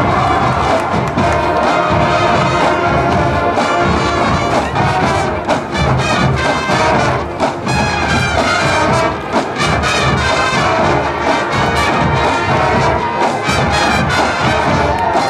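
A massed school band of about 700 players performing loudly, with brass to the fore over a steady percussive beat.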